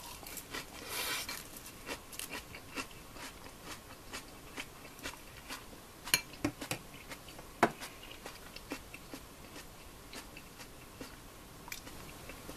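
Someone eating at a dinner table: scattered small clicks and taps of chopsticks, tableware and chewing. There is a brief rustling scrape about a second in and two sharper knocks around six and seven and a half seconds in.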